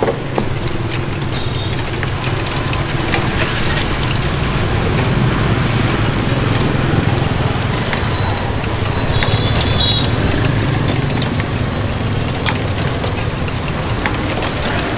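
Steady street traffic, mostly passing motorbike engines, with occasional light clicks and a brief high-pitched squeak about two-thirds of the way through.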